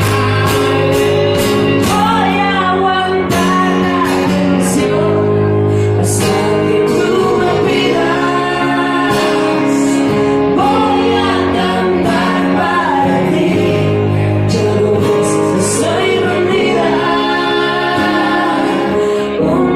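Live band performance of a pop-rock song, with a held chordal accompaniment, a steady beat of cymbals, and a sung vocal line.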